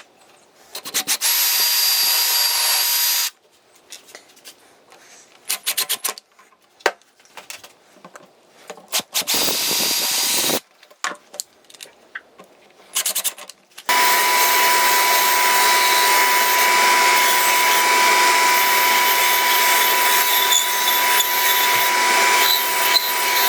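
Electric drill running, first for about two seconds, then in several short bursts, then in one long steady run with a constant whine for the last nine seconds or so, as it drills through PVC and drives drywall screws into pine.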